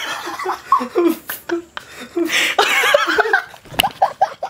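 A man laughing hard in uncontrolled fits and gasps, breaking the take. A sharp knock sounds near the end.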